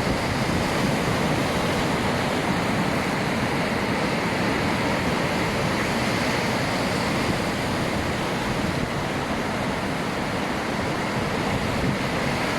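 Heavy ocean surf: a steady rushing wash of waves, with no single break standing out.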